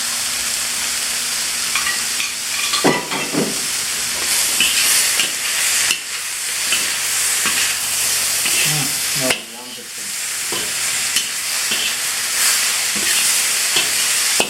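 Chicken and vegetables sizzling in a hot pan as they are stir-fried, with the scrape and clack of a spatula stirring them. The sizzle briefly dips about two-thirds of the way in.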